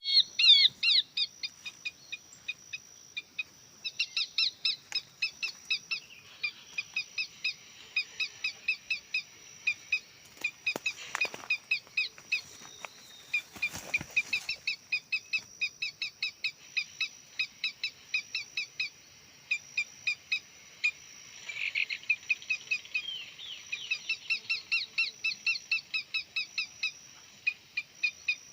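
Horsfield's babbler (pelanduk semak) call sounded as a lure: rapid, evenly spaced high chirps, about four to five a second, in long runs with short gaps. A steady high insect whine runs underneath.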